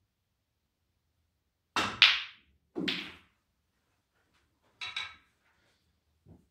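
Clicks and knocks of snooker balls from a shot: a sharp double click about two seconds in as the cue tip strikes the cue ball and the cue ball hits an object ball, another knock about a second later, a further double knock near five seconds, and a faint thud near the end.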